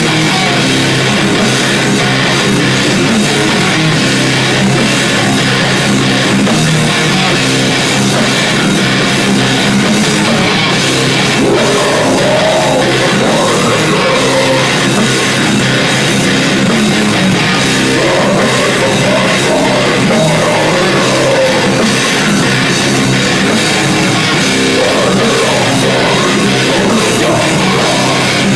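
Heavy metal band playing live: distorted electric guitars, bass and drum kit, loud and unbroken.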